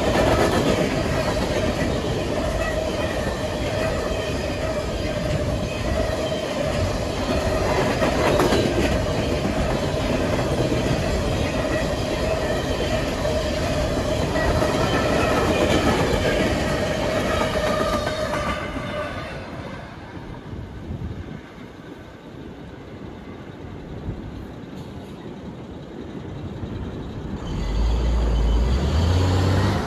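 A fast CSX coal train passing: a loud, steady rumble and clatter of the cars running over the rails, with a steady high tone running through it. About two-thirds of the way through, the last cars go by and the sound drops away. A low rumble rises near the end.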